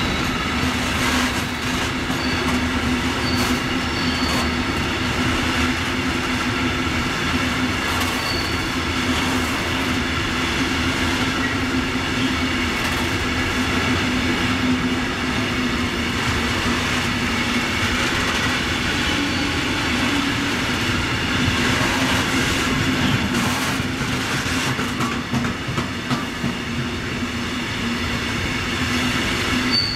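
Loaded coal train's open freight wagons rolling past on the rails: a steady rumble of wheels on track, with knocks and clatter over the rail joints and a few brief, high wheel squeals.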